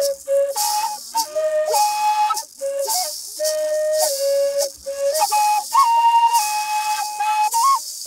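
Music: a high melody of held, pure-toned notes that step up and down, over a shaker keeping a steady rhythm.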